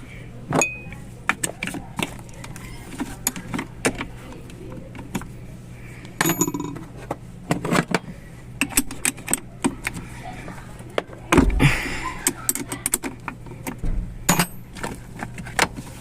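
Irregular metallic clicks, clinks and knocks of hand tools and fittings being handled during a vehicle battery replacement, with louder clusters of knocks about six, eleven and fourteen seconds in.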